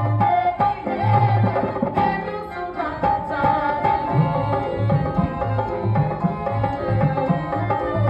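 Live drama accompaniment: a tabla playing a steady rhythm of low strokes under a held melody line.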